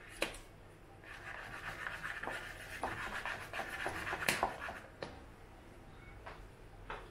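Hand-pumped plunger milk frother frothing milk: quick rhythmic swishing of the mesh plunger through the milk for about four seconds, with a few sharp clicks, the loudest near the end of the pumping.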